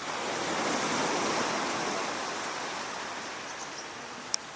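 A small sea wave washing up the beach, its rush swelling about a second in and then slowly draining away, with a sharp click near the end.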